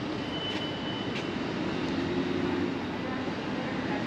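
City street traffic noise: a steady wash of passing vehicles on a downtown street.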